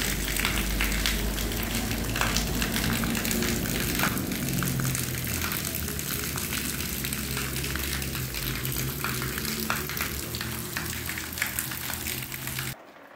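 Heavy rain pouring down, a dense steady hiss with many close drops ticking, cutting off abruptly near the end.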